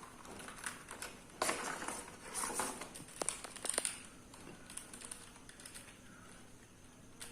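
Irregular clicks of keys being pressed on a Keychron K3 v2 low-profile mechanical keyboard, mixed with short rustles of handling.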